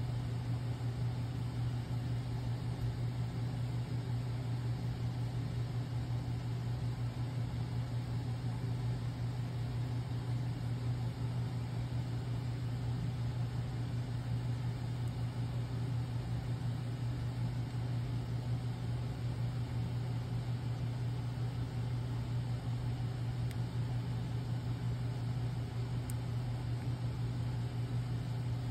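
A steady low hum with a faint even hiss, unchanging throughout, with no distinct knocks or clicks.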